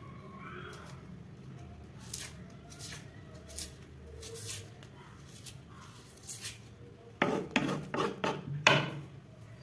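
Kitchen knife scraping and peeling the papery skin off a red onion, with light scrapes and taps. About seven seconds in, a quick run of sharper knife strokes knocks against the chopping board as the onion is cut.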